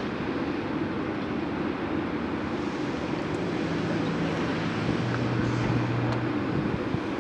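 Gottwald mobile harbour crane's machinery running with a steady rumble while the hoist works the clamshell grab on its ropes; about three and a half seconds in, a low steady hum from the drive joins for some three seconds.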